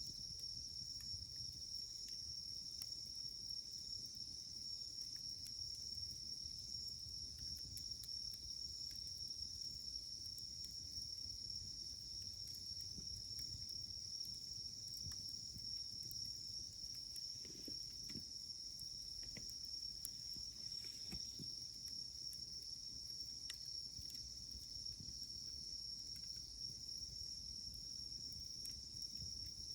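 Insects chirring in one steady, unbroken high-pitched drone, with faint scattered crackles from a wood campfire.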